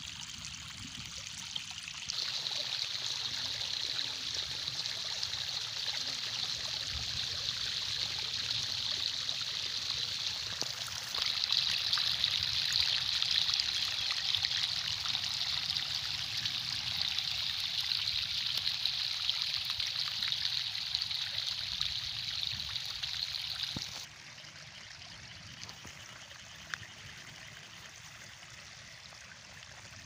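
Muddy stream water rushing and splashing over rocks in a small cascade, a steady hiss of flowing water. The level steps up abruptly twice and drops suddenly to a softer flow about four-fifths of the way through.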